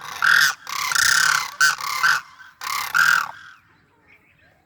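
Demoiselle cranes calling: a run of about six loud, harsh, rasping calls over the first three seconds, then fading off.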